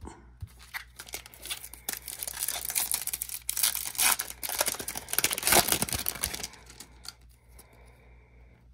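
The plastic wrapper of a trading-card pack being torn open and crinkled in the hands. It is loudest in the middle and dies down about two-thirds of the way through.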